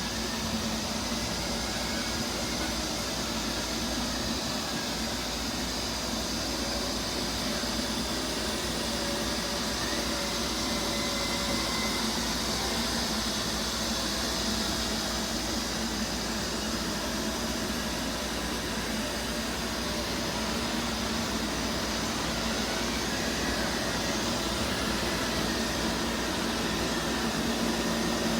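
Several robot vacuum cleaners running at once: a steady whir of their motors and brushes with a low hum underneath.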